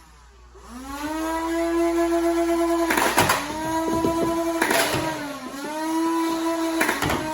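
A small electric motor spins up with a rising whine and then runs steadily, its pitch sagging and recovering once near the middle. Sharp plastic clacks cut in about every two seconds.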